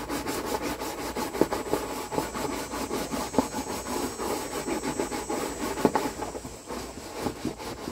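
Scrub brush scrubbing a wet plastic kiddie pool in rapid, steady back-and-forth strokes, scouring green algae off with vinegar and water. The strokes ease off near the end.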